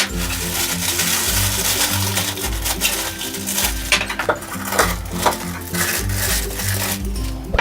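Rustling and several light clinks and clicks as the cold brew coffee maker's parts and packaging are handled, over background music with a repeating low bass line.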